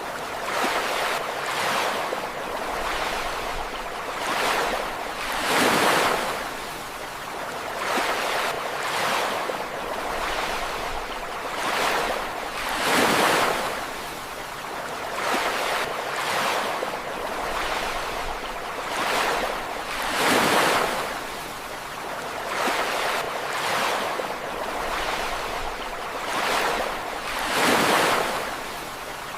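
Sea waves breaking and washing up a beach, a continuous surf hiss that rises and falls in repeated swells. The biggest breakers come about every seven seconds, with smaller ones between them.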